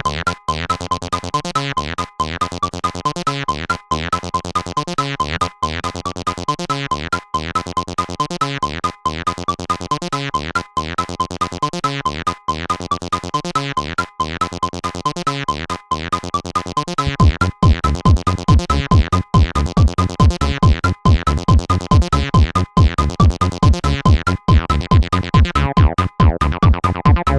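Acidcore electronic music: a looping synthesizer pattern, joined about two thirds of the way through by a heavy bass kick drum with a steady beat.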